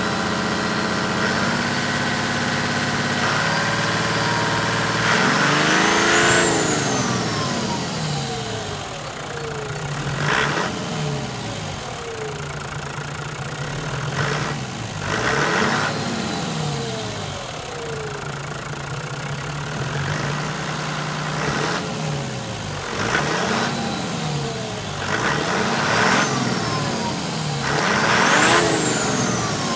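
Toyota Land Cruiser 100 series 1HD-FTE 4.2-litre straight-six turbo diesel idling, then revved in repeated blips, each climbing and dropping back to idle. The two biggest revs, about six seconds in and near the end, carry a high whistle that rises and falls with them.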